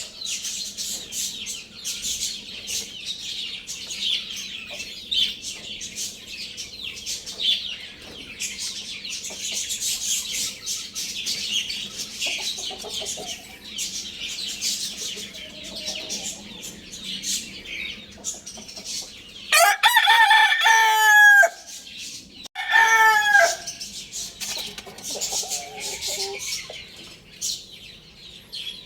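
A young rooster crows twice about two-thirds of the way in, a longer crow then a shorter one, followed by a fainter call. Before the crows, a dense run of high chirping from small birds fills the background.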